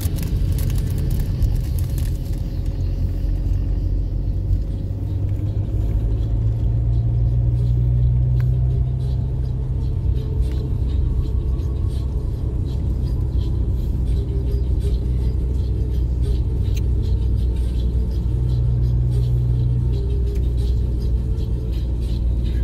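Car engine and tyre noise heard from inside the cabin while driving, a steady low rumble whose engine note shifts a few times as the speed changes.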